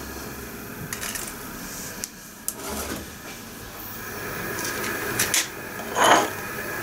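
Freshly lit gas stove burner hissing steadily under a pot, a little louder in the second half. A few light clicks and knocks come from a matchbox and small items being set down on the counter, the loudest about six seconds in.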